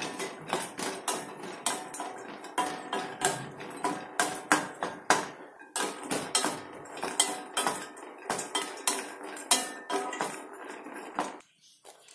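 Dry ginger pieces being dry-roasted in a stainless steel kadai, clattering and knocking against the metal as they are stirred and tossed with a wooden spatula, the pan ringing after the knocks. The rapid, irregular knocking stops abruptly near the end.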